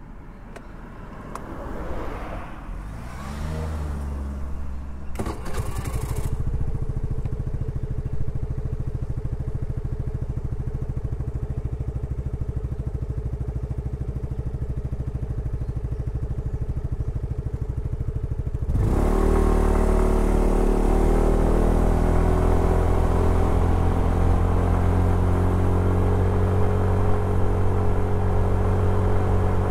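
Suzuki Address 110 scooter's single-cylinder engine running steadily at idle after a rising whir in the first few seconds. About two-thirds of the way in, the scooter pulls away and the engine runs louder and higher, under way.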